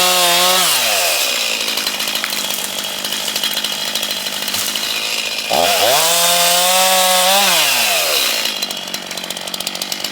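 Gas chainsaw at high revs. Its pitch drops about half a second in as it bogs down cutting into wood for several seconds. It revs up high again just before six seconds in and falls back near eight seconds.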